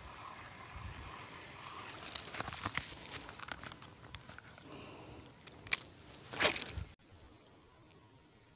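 Fishing tackle handling noise: scattered clicks and rattles of a spinning rod and reel as a lure is cast and retrieved, with one loud rustle about six and a half seconds in. The background drops away abruptly just after it.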